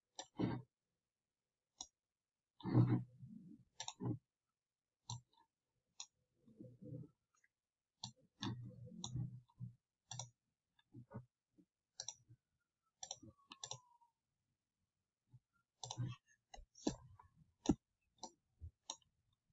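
Computer mouse buttons clicking: irregular single and double clicks, a few with a duller knock.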